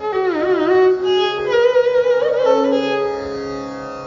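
Indian classical-style instrumental background music: a single melody instrument sliding and bending between notes over a steady drone.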